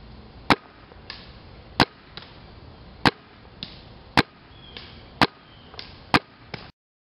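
Vanguard Demon paintball marker firing six single shots about a second apart, each a sharp pop. Each pop is followed about half a second later by a fainter knock, and the sound cuts off suddenly near the end.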